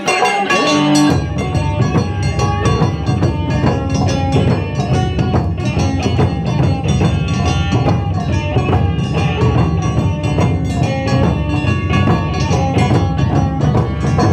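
Live Japanese festival music from a band of wadaiko (taiko drums) and shamisen. The low drums come in heavily about a second in and keep up a dense, driving rhythm.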